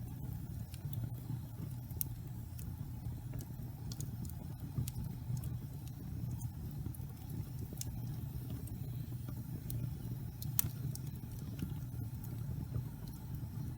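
Wood fire burning in a fireplace: a steady low rumble with scattered sharp crackles and pops.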